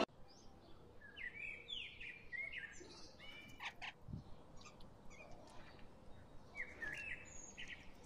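Brahminy starlings giving short chirping calls, in a run of notes early on and another cluster near the end, with a soft low thump about four seconds in.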